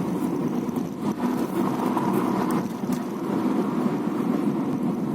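Car driving along: steady road and running noise, with no clear squeal standing out.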